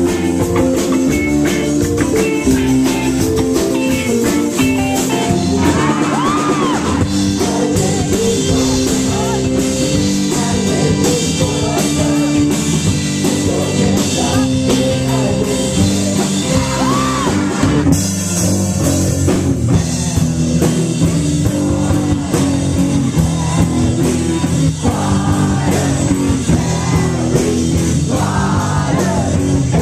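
Live rock band playing loud, driving wizard rock: drum kit and guitar with singing.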